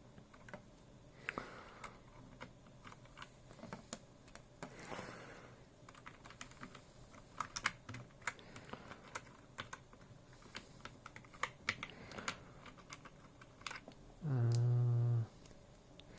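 Scattered light plastic clicks and taps of an MX-style mechanical keyboard switch being handled and pushed into the keyboard. There is a brief, steady low hum near the end.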